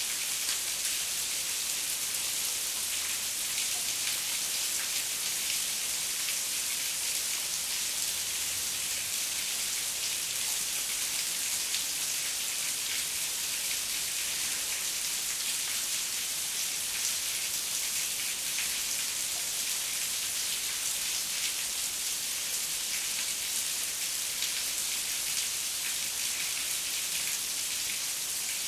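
Heavy rain falling steadily: an even hiss of countless drops.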